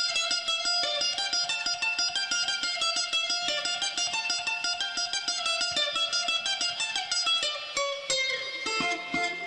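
Background music on a plucked string instrument, played as fast picked notes in a running melody.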